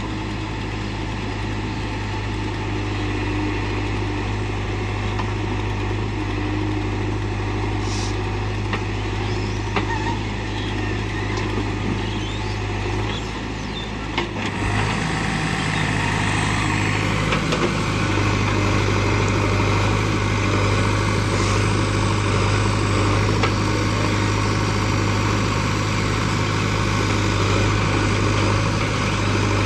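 Diesel engines of heavy earthmoving and farm machinery running steadily with a constant low hum. About halfway through the sound shifts and grows a little louder.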